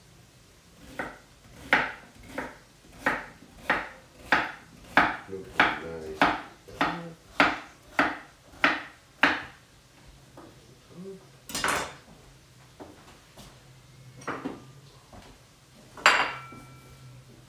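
A kitchen knife chopping on a wooden cutting board: about fifteen even strokes, a little more than one a second. Then come a few separate knocks and, near the end, a loud clatter with a short ring.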